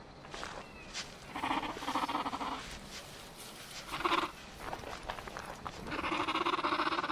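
Dinosaur sound effects: a herd of sauropods calling with drawn-out pitched calls. There are three main calls: one about a second and a half in, a short one about four seconds in, and a long one from about six seconds in.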